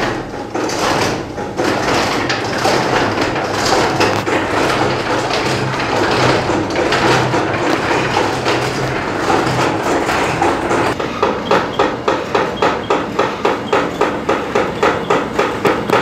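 Wooden gearing of a windmill turning while it grinds: the wooden cogs of the gear wheels and the millstones run with a continuous clattering rumble. About two-thirds of the way in, a regular knocking sets in, about two or three knocks a second.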